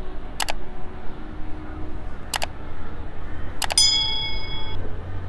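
Subscribe-button animation sound effects: three mouse clicks about two seconds apart, the third followed by a short, bright bell ding that rings for about a second. Steady background noise with a low hum runs underneath.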